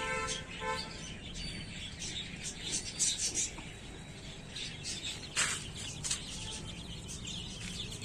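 Small birds chirping in quick short notes over a steady outdoor background. A vehicle horn toots twice right at the start.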